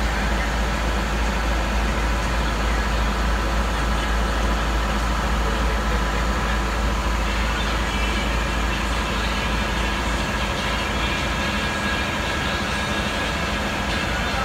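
Navistar MaxxForce DT diesel engine running steadily with a constant low hum, while its aftertreatment fuel (dozer) injector is being commanded on during a test.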